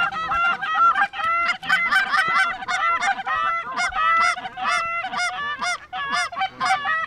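Canada geese honking and clucking, many calls overlapping in quick succession.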